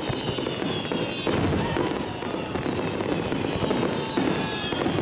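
Fireworks display: a dense, unbroken run of bursts and crackling pops, with several whistling tones sliding down in pitch over it.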